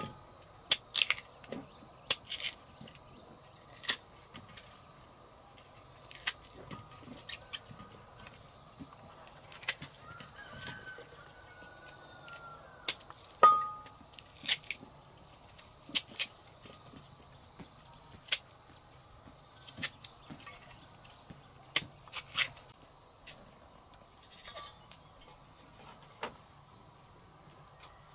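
Steady high-pitched insect chorus throughout, with scattered sharp knocks and clicks, the loudest about halfway through.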